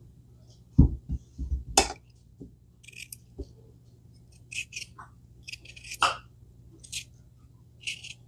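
A few dull knocks and thuds about a second in, the loudest sounds here, then a run of short scraping strokes as a paring knife takes the skin off a cucumber.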